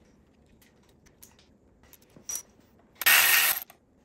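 Faint clicks of tools and parts being handled, then near the end a loud burst of a ratchet wrench turning out a bolt from the bottom of the engine case.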